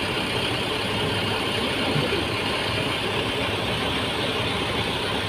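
Rear-mounted diesel engine of an intercity bus idling steadily, heard up close through the open engine bay. It runs normally, an unpleasant engine noise having just been repaired.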